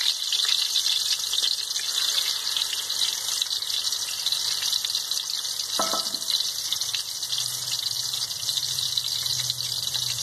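Marinated whole quail sizzling steadily in hot coconut oil in a metal wok. A brief clink sounds about halfway through.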